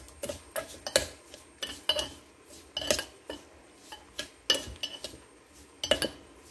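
A metal spoon stirring crumbly homemade mawa with sugar in a metal pot. It clinks and scrapes against the pot's sides about three times a second.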